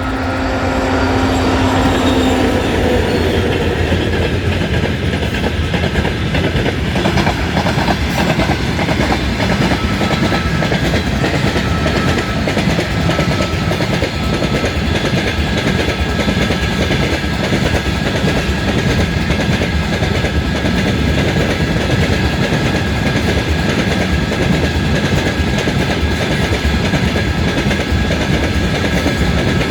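2TE116 two-section diesel locomotive passing under power with a whistling tone, its engine note dropping in pitch over the first couple of seconds. A freight train follows with continuous wheel clatter and a steady high whistle.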